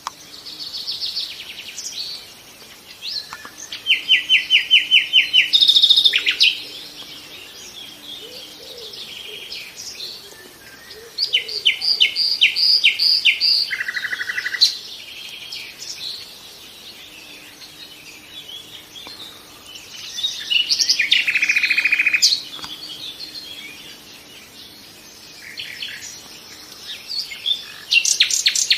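Nightingale singing in separate phrases of rapid repeated notes, each phrase lasting a couple of seconds and shifting between higher and lower pitches, with pauses of several seconds between phrases.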